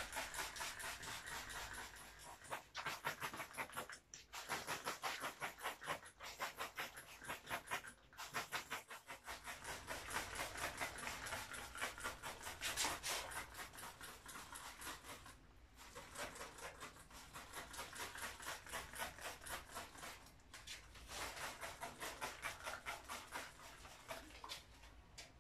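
Rapid, rhythmic back-and-forth rubbing on the surface of a painting laid flat on a table, several strokes a second, in runs of a few seconds broken by short pauses.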